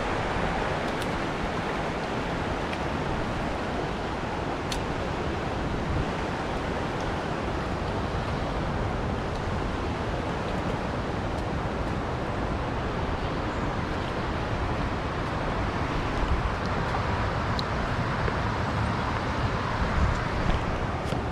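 Steady rushing of a river's flowing water, an even noise without breaks, with a few faint ticks.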